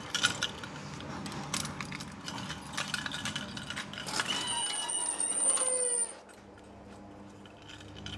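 Busy clatter of small clinks and knocks, then a high squeal with a shifting pitch about four seconds in. The clatter cuts off suddenly at about six seconds, leaving a low steady hum.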